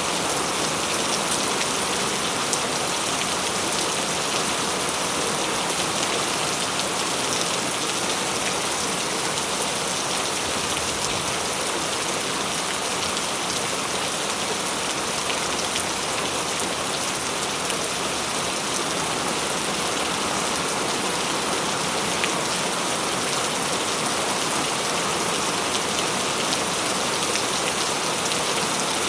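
Heavy rain falling steadily, a dense even hiss of drops with fine scattered pattering on surfaces.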